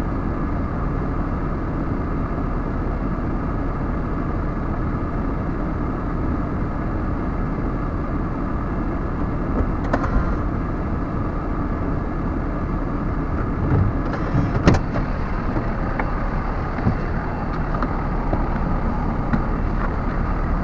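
Heavy truck's diesel engine idling steadily, heard from inside the cab, with a few light clicks partway through.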